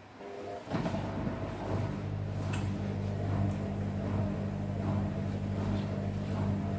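Washing machine starting up under a second in and running with a steady low hum that does not change in pitch, with a light click or two.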